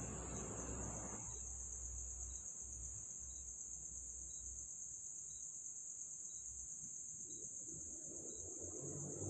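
Crickets trilling in a continuous high-pitched chorus, with a faint tick about once a second.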